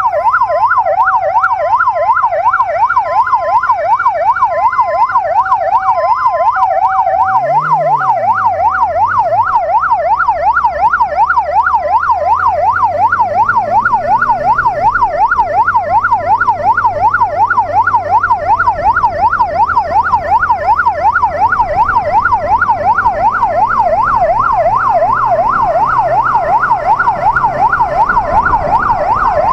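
Fast yelping electronic siren sweeping rapidly up and down, over the low running of a 600cc inline-four police motorcycle engine. For the first several seconds a second, two-tone siren alternates along with it, and about eight seconds in the engine briefly rises and falls in pitch.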